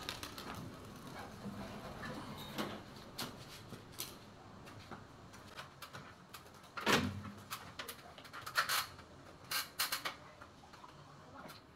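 Scattered clicks and knocks of hand and tool work on an air-conditioner outdoor unit and its wall bracket, with one louder thud about seven seconds in.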